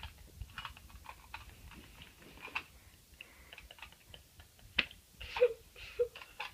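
Scattered light clicks and taps of small objects being handled, with one sharper click about five seconds in.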